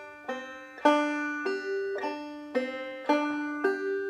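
Five-string banjo in double C tuning played clawhammer style, demonstrating the drop-thumb pattern: the middle finger strikes down on a melody note and the thumb drops to an inner string. About seven plucked notes in an even rhythm, roughly two a second, each ringing on briefly.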